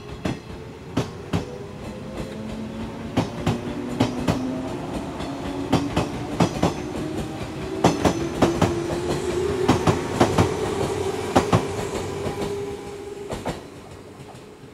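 JR 115 series electric train pulling away, its motors whining in a slowly rising pitch as it gathers speed. Its wheels clack over the rail joints in irregular clicks, and the sound fades near the end as the last car leaves.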